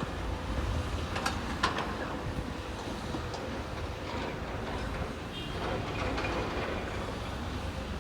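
Electric commuter train running past on the line: a steady low rumble of wheels on rail, with a couple of sharp clicks about a second in.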